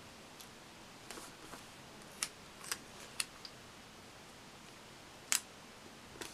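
Paper stickers being peeled from their backing sheet and pressed onto a planner page: a few scattered short, crisp ticks and light paper rustles over a faint steady hiss.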